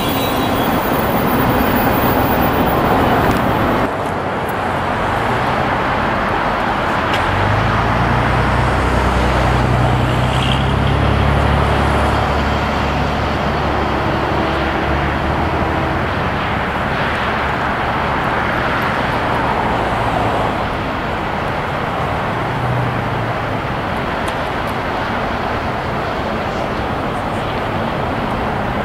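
Steady road traffic noise. A deeper engine hum swells for several seconds in the middle.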